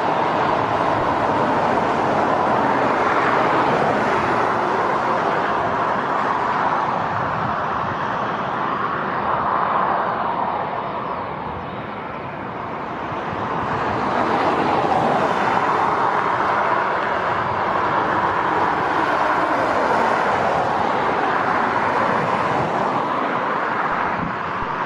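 Jet engines of a Boeing 737-800, CFM56 turbofans, running at taxi power as the airliner taxis and turns onto the runway; a steady rushing noise that eases a little about halfway and grows louder again.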